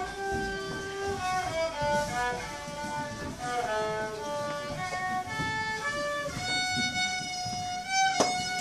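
Solo fiddle bowed by a young child: a melody of short stepping notes that settles into one long held note about six and a half seconds in. A single sharp knock near the end.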